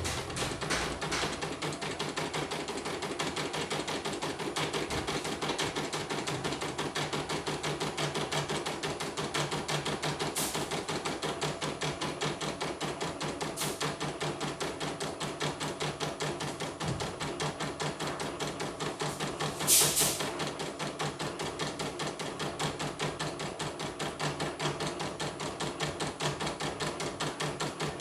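Computerized embroidery machine stitching, a fast, even run of needle-bar knocks at a steady rate. One louder sharp click comes about two-thirds of the way through.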